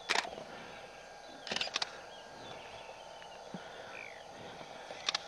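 Quiet bush ambience with a steady faint hum, scattered faint bird chirps in the middle, and a few short clicks or rustles at the start, about a second and a half in, and near the end.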